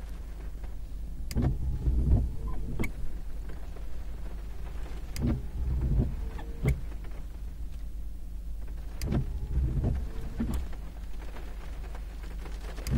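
Car windscreen wiper sweeping on an intermittent setting: three sweeps about four seconds apart, each with the wiper motor's brief whir and a clunk at each end of the blade's travel, over a low steady hum.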